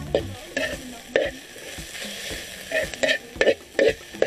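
Chopped onion and chili sizzling in a wok, with a spatula scraping and clacking against the pan in quick, irregular strokes, a few a second.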